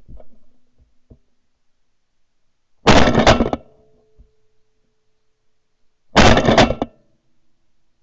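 Two volleys of shotgun fire, about three and about six seconds in, each a quick run of several blasts close together as hunters shoot at flying ducks.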